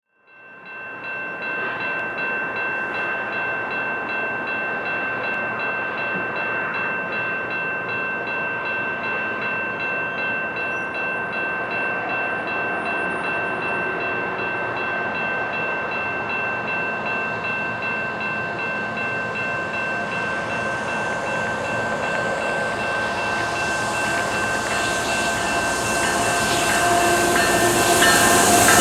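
A warning bell rings steadily with a quick regular pulse, holding the same ringing tones throughout. Over the last few seconds the rumble and rail noise of an approaching freight train grows louder beneath it.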